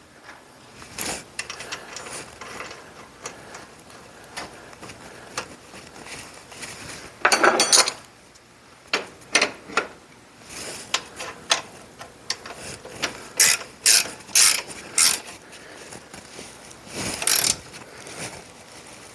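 Wrench work on the bolt of a Brunswick A2 pinsetter's motor swing shaft: irregular metal ratcheting clicks and clanks, with a louder cluster about seven seconds in and a quick run of sharp clicks near thirteen to fifteen seconds.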